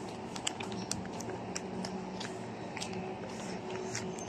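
Footsteps and phone handling while walking: small irregular clicks and crunches, several a second, over a steady low hum.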